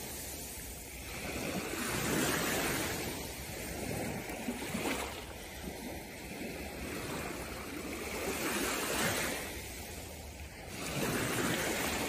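Small waves washing in and drawing back over a sandy shore in shallow water, the surf swelling and fading every few seconds.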